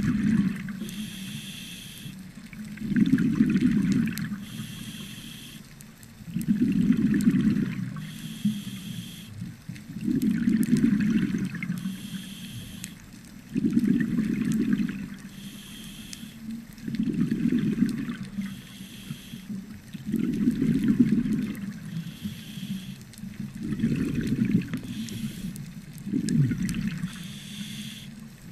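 Scuba diver breathing through a regulator: a short hiss of inhalation, then a burble of exhaled bubbles, repeating evenly about every three and a half seconds.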